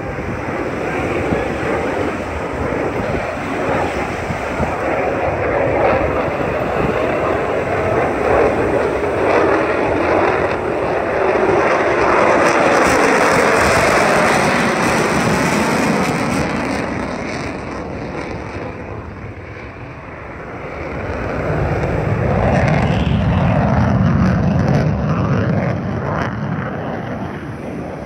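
Lockheed Martin F-22 Raptor jet, its twin Pratt & Whitney F119 turbofans giving a loud rushing roar during a display pass. The roar swells to its loudest about halfway through, dies away somewhat, then builds again with a deeper rumble in the last third.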